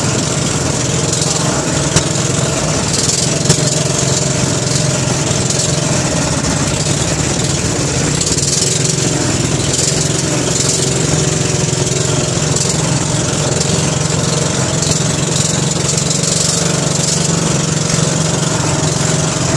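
The engine of a wooden outrigger boat (bangka) running at a steady pace under way, a continuous loud drone with a hiss of wind and water over it. Two sharp knocks cut through, about two and three and a half seconds in.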